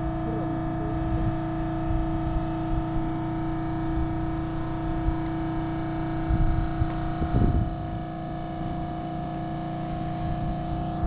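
Steady machine hum made of several held tones, with faint voices now and then in the background.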